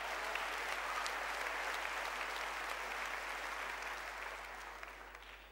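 Audience applauding, many people clapping together, the clapping dying away near the end.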